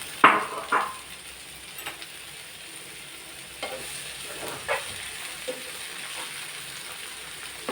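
Sliced shallots and garlic sizzling in hot coconut oil in a frying pan as they are sautéed with salt. A spoon scrapes the pan a few times while stirring.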